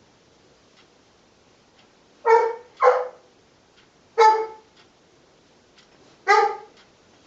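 Four short, hoarse, honking coughs: two in quick succession, then one more and a last one about two seconds apart. It is the recurring cough the uploader associates with asthma.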